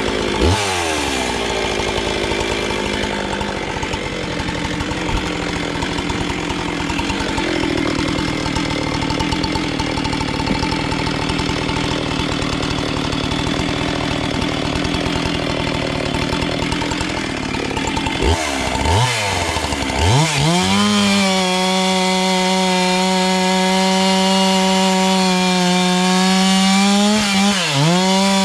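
Large two-stroke chainsaw running at a rough, uneven pitch under load for most of the time, as if bogged in a cut. About 18 seconds in the revs drop and then climb to a steady high pitch at full throttle, followed by a few quick throttle blips near the end.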